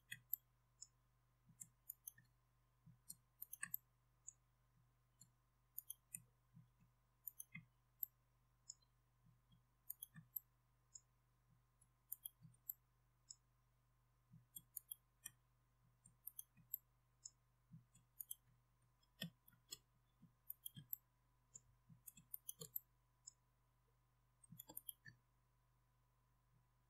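Faint, irregular clicks of a computer mouse and keyboard, from Alt- and Shift-clicks selecting edge loops, a few to several per second in clusters, over a very faint steady electrical hum.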